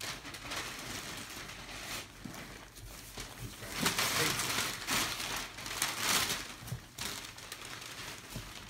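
Gift-wrapping paper rustling and tearing as it is pulled off a large cardboard box, in a run of crinkling pulls that swell loudest around the middle.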